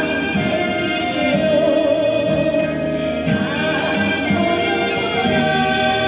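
A Korean fusion gugak ensemble playing live: a woman sings long held, wavering notes into a microphone over violin, gayageum, haegeum and flute.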